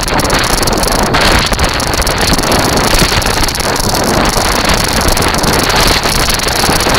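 Strong wind rushing over the microphone of a moving kite buggy, over a steady low rumble from its wheels rolling on the sand and shingle. A faint steady high whine runs underneath.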